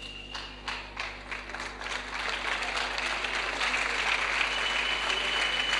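A crowd clapping: a few scattered claps at first, thickening after about two seconds into steady applause that grows louder.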